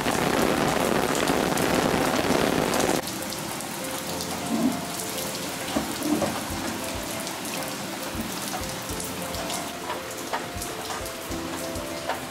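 Steady rain falling, loud for the first three seconds and then quieter.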